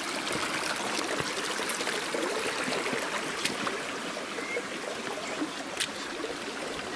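Creek water running and trickling over rocks, a steady rushing hiss, with a few faint clicks.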